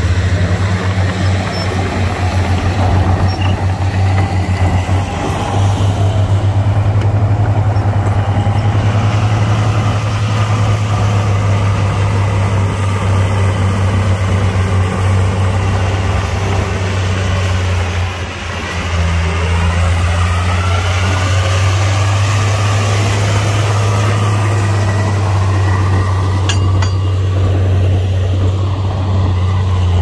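Heavy diesel engine of an earthmoving machine running steadily at a low, even pitch, with a brief dip in loudness a little past halfway.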